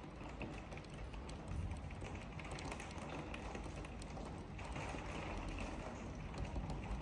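Rain falling steadily, with many small irregular taps of drops striking hard surfaces.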